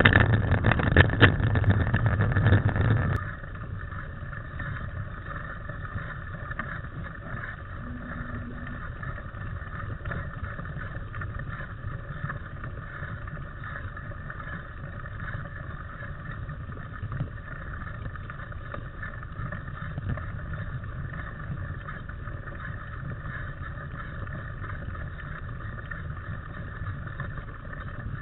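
Riding noise from a camera carried on a mountain bike: wind buffeting the microphone and the rumble of tyres and bike on a dirt forest trail. It is loud for about the first three seconds, then drops suddenly to a steady, quieter rumble.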